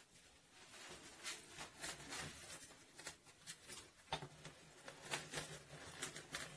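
Fresh greater celandine stems and leaves pushed by hand into the hopper of an old hand-cranked meat grinder: faint rustling with irregular clicks and crunches. Near the end the crank turns to grind them.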